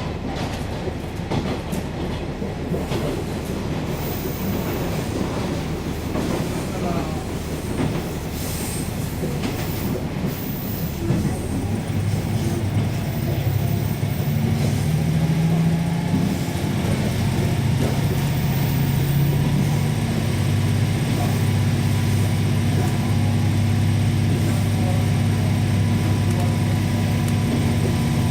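Diesel railcar running along the line, its wheels clacking over the rail joints. About halfway through the engine drone comes up louder, rises slightly in pitch and then holds steady.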